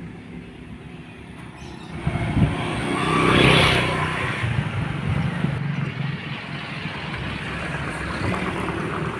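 A motor vehicle passing close by on the road, its engine running, the sound swelling to its loudest about three and a half seconds in and then easing off.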